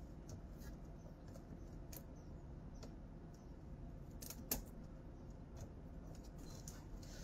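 Faint room tone with scattered small clicks and taps, one sharper click about four and a half seconds in.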